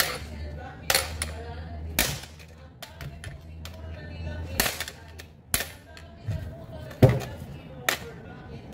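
Sharp knocks and clicks, about one a second, from a Makita cordless drill and a steel hex key being handled and set down on the bench while the key is fitted into the drill's chuck.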